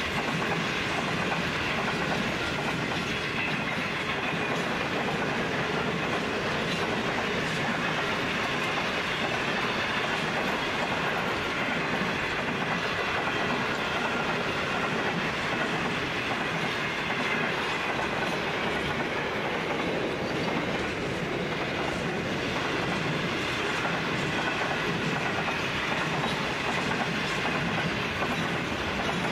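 Loaded freight wagons of a heavy steel train rolling past steadily: a continuous rumble with the clickety-clack of the wheels on the rails.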